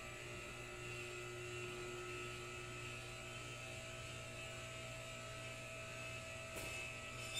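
A steady electrical hum that holds unchanged throughout, with a faint click about six and a half seconds in.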